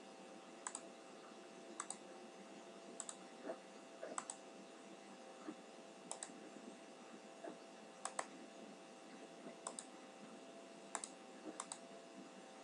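Computer mouse buttons clicking: sharp single clicks at an irregular pace, about one a second. Underneath is a faint, steady electrical hum and hiss.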